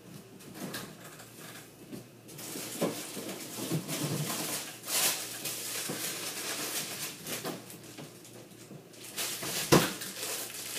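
Kitchen handling noises: light clatter of dishes and rustling, with scattered clicks and a sharp knock just before the end.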